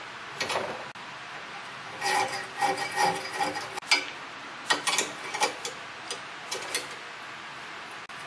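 Metal clevis pin scraping and clinking in irregular bursts as it is pushed and twisted through the kickstand bracket's pivot holes, a tight metal-on-metal fit where weld had got into the hole.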